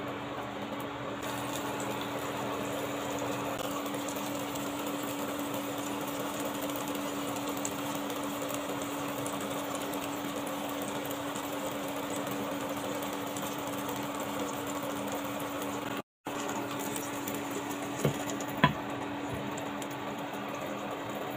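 Oil sizzling steadily in a frying pan as tomato rings and beaten egg fry, over a steady low hum. Near the end, two sharp clicks as a glass lid is set on the pan.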